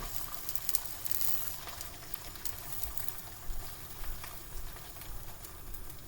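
An egg frying in melted butter in a pan: a steady sizzle with small crackles.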